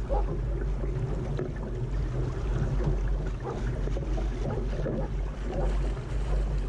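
Water sloshing and gurgling against the hull of a Laser sailing dinghy under way, in irregular splashes over a steady low rumble of wind on the microphone.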